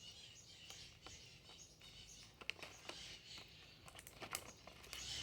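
Faint handling sounds of an airsoft BB package being closed: soft rustling with a few light clicks.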